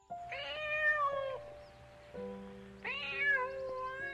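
A domestic cat meowing twice, each meow about a second long, over soft piano music with held notes.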